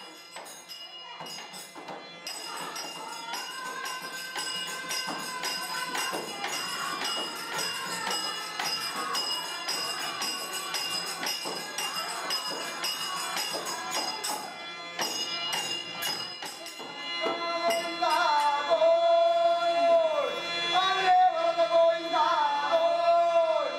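Traditional South Indian devotional music: rapid jingling percussion over a steady held drone and melody, joined about 17 seconds in by a man's voice singing, louder than what came before.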